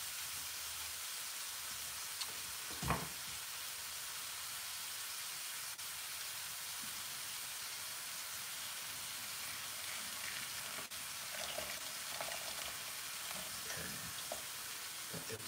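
Stir fry sizzling steadily in a hot frying pan on the stove, with a single knock about three seconds in and light scraping of stirring near the end.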